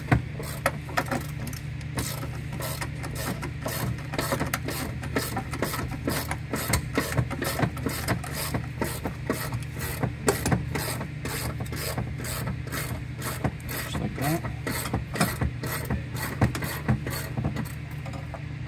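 Hand ratchet wrench clicking steadily, several clicks a second, as a T45 Torx bolt is turned. A steady low hum runs underneath.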